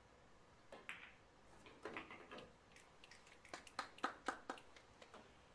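Pool balls on a 9-ball table: the cue tip strikes the cue ball, then balls click and knock against each other, the cushions and the pocket in a series of sharp clicks, the loudest coming in a quick run near the middle.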